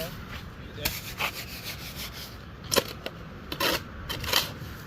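Wet cement mortar being mixed by hand: a tool scraping and turning through the mix in several short, irregular strokes.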